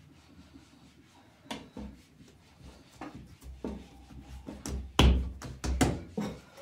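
Dull knocks and thumps on a wooden worktable as bread dough is handled and worked, scattered at first, then several louder ones close together in the second half, the loudest about five seconds in.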